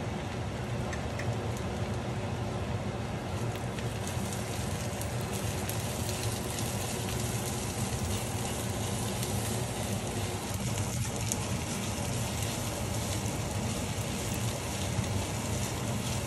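Sliced red onion and herbs sizzling in hot oil in a frying pan, a steady crackle that grows livelier about four seconds in, over a steady low hum.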